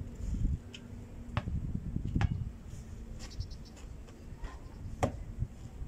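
A few sharp knocks of a basketball being bounced and shot at the hoop, the loudest about five seconds in, over a steady low rumble.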